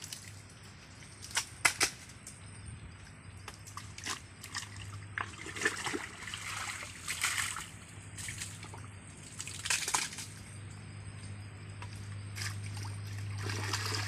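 Muddy water sloshing and splashing in a shallow ditch as someone wades and gropes through it by hand, with irregular sharp splashes and slaps. A steady low hum runs underneath and grows louder near the end.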